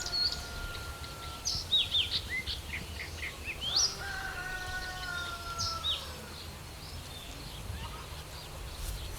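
Birds chirping and calling outdoors: many short high chirps and quick sweeps, with two longer drawn-out calls that fall slightly in pitch, one at the start and one about four seconds in. A low steady rumble runs underneath.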